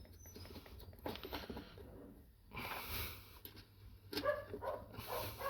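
Light clicks and taps of small metal parts being handled while nuts go onto the bolts of a door check arm, with a breathy hiss about three seconds in and a short, muffled voice-like sound near the end.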